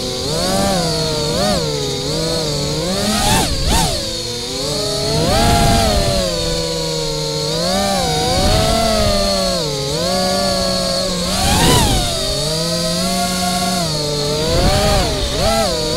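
FPV quadcopter's brushless 2207 motors whining, their pitch rising and falling constantly with the throttle, with quick sharp swoops about three and a half seconds in and again near twelve seconds. A steady high whine runs underneath.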